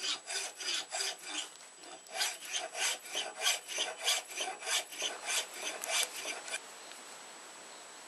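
Hand file rasping back and forth on a knife blade in quick even strokes, about three a second, stopping abruptly about six and a half seconds in.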